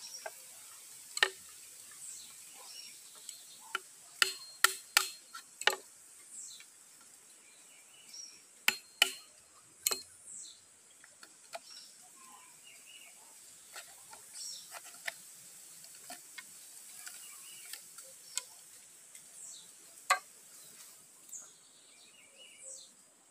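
Sharp knocks of a hand tool striking and cutting into green bamboo poles, in short clusters with pauses between, over birds chirping in the background.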